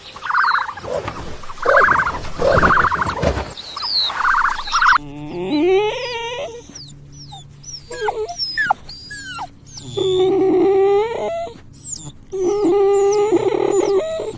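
Animal calls in two clips: a few loud, rough calls in the first five seconds, then a run of high gliding whines and cries, with longer held calls near the end.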